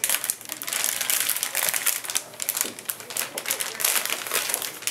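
Anti-static plastic bag crinkling and rustling as a motherboard is slid out of it, with many quick irregular crackles.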